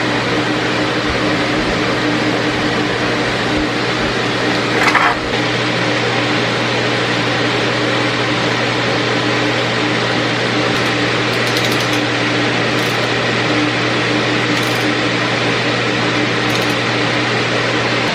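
A steady mechanical hum and whir runs throughout, with a brief squeak about five seconds in.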